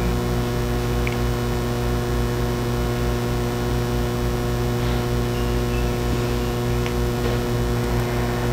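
Steady electrical mains hum, a low drone with a stack of overtones, carried through the recording's audio chain. A few faint ticks sound over it.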